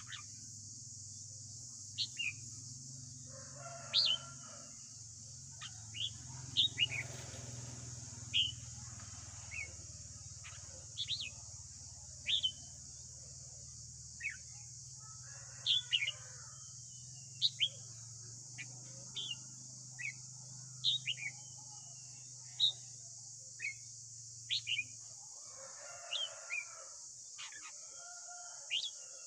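Red-whiskered bulbul calling: short, sharp, falling notes, about one a second, over a steady high hiss.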